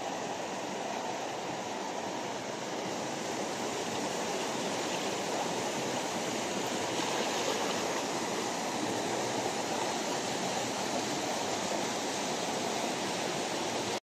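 Steady rush of a waterfall pouring into a rock pool, an even wash of water noise.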